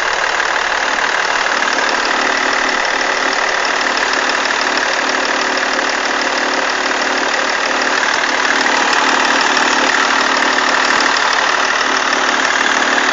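BMW E46 330d's 3.0-litre straight-six diesel idling with a rapid, even ticking chatter on top, the sign of a failing alternator belt tensioner. It gets slightly louder about two-thirds of the way through.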